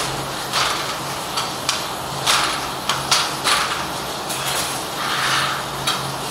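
Handloom with a korvai border-weaving attachment in operation: repeated clacks and short sliding rasps of the loom's wooden and metal mechanism, coming irregularly about every half second to second, over a steady low hum.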